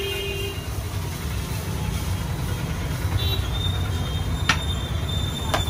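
Steady low rumble of road traffic passing a roadside dosa stall, with two sharp clicks from the cook's utensils at the griddle in the second half. A thin high tone also runs through the latter half.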